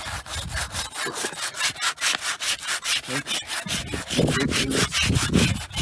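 Sheet of 100-grit sandpaper, held by hand, rubbed back and forth over dried Bondo body filler and resin on a car dash. It makes a fast, even run of scratchy strokes, smoothing the filler, and the strokes grow heavier about four seconds in.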